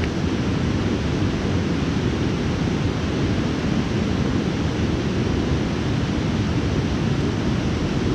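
Steady rush of a shallow, rocky stream running over stones, heaviest in the low end.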